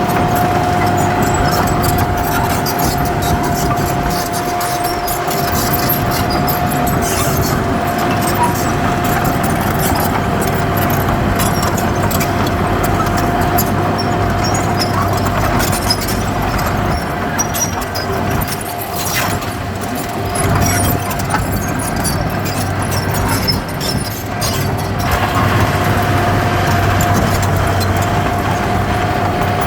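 Heavy diesel earthmoving machinery running steadily, a constant high-pitched whine over the low engine drone, with scattered clicks and knocks.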